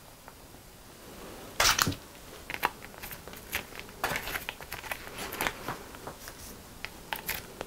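Small plastic sauce sachets crinkling and being torn open by hand, with a sharp loud rip about a second and a half in, then a run of crackling crinkles.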